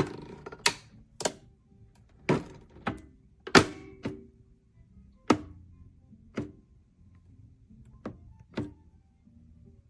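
A series of about ten irregular knocks and clunks, like hard objects being handled and set down, loudest at the start and about three and a half seconds in.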